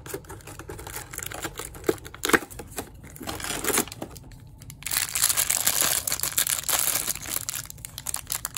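A cardboard door on a toy box is torn open along its perforations, with a few sharp snaps and tearing in the first few seconds. Then a plastic blind bag crinkles loudly as it is pulled out and torn open.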